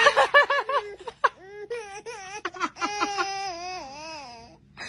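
A quick run of high-pitched laughing syllables, then a baby crying in long wavering wails that stop just before the end.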